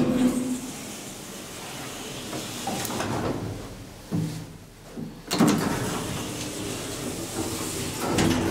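Doors of a Deve-Schindler hydraulic elevator being worked: a sharp clunk at the start as the door is opened, then the car's sliding door running and clunking shut a little past five seconds in, with another clunk near the end.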